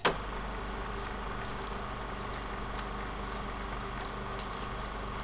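Steady low hum and hiss with a sharp pop at the start and scattered faint crackles: the surface noise of an old archival film soundtrack.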